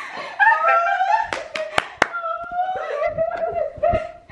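Women's high-pitched voices squealing and crying out with excitement, without words. About a second and a half in come four sharp hand claps in quick succession.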